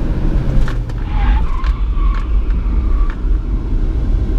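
Citroen Berlingo braking hard from 100 km/h, heard from inside the cabin: heavy road and engine rumble, with the tyres squealing from about a second in until about three seconds, and a few short clicks.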